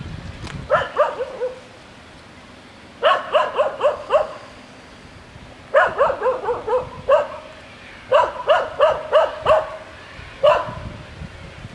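A dog barking in quick runs of several barks, five bouts about two to three seconds apart, the last a single bark.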